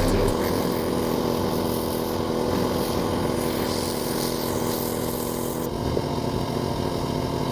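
Gas pressure washer engine running steadily with the hiss of the spray; the high hiss drops off about six seconds in.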